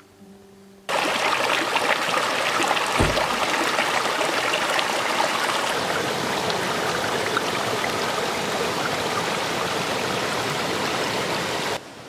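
Steady loud rush of running water, like a mountain stream, cutting in abruptly about a second in and stopping abruptly near the end. A single low thump comes about three seconds in.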